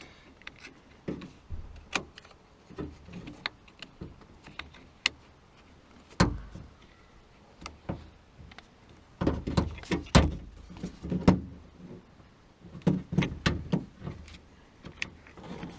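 Scattered clicks and knocks of plastic and metal as a car door lock assembly and its cable are worked into place inside the door. The knocks come thickest a little past the middle and again near the end.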